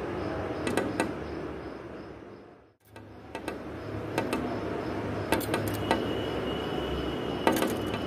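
Small bird pecking at window glass with its beak: sharp, scattered taps, a few spaced out and a quick cluster near the end. The sound dips away briefly just before the middle.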